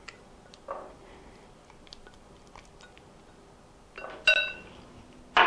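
Rubber spatula scraping thick pumpkin puree out of a small glass bowl into a large glass measuring bowl, with faint taps and clicks against the glass. About four seconds in comes a louder clink of glass that rings on briefly.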